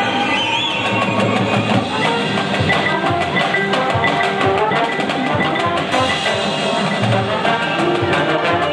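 Drum corps playing live: dense, rapid percussion strokes from drums and mallet keyboards over held pitched notes.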